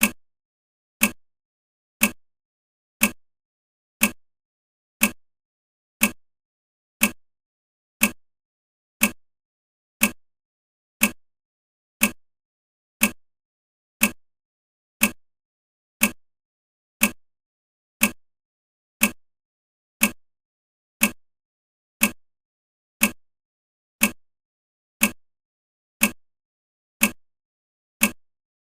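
Countdown timer's clock-tick sound effect: one short, sharp tick every second, evenly spaced, marking the seconds counting down.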